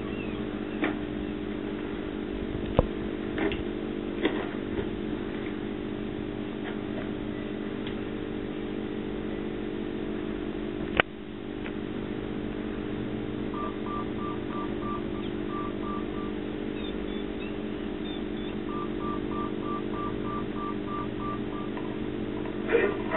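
A steady low mechanical drone with a few sharp knocks. In the second half come two runs of short, evenly spaced electronic beeps, about three a second.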